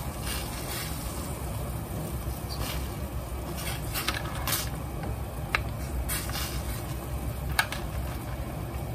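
Water at a rolling boil in a stainless steel pot, a steady bubbling rumble, as eggs are lowered in on a ladle that knocks lightly against the pot a few times, the sharpest clinks about five and a half and seven and a half seconds in.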